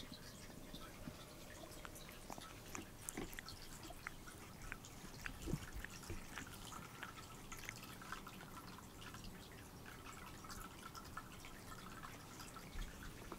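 A light gray tabby cat licking its fur while grooming: faint, irregular wet clicks of the tongue, with one soft thump about halfway through.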